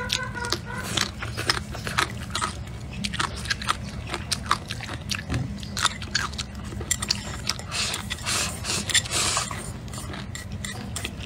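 Close-miked eating of rice with stir-fried pork and pickled peppers: a string of short, crisp crunches and chewing sounds, with a longer noisy stretch about eight seconds in.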